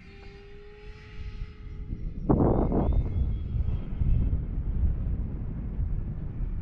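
Radio-controlled Airbus A320 model jet flying overhead, its engines giving a steady whine that rises slightly in pitch and fades. About two seconds in, a sudden loud rushing burst cuts in, and wind rumbles on the microphone throughout.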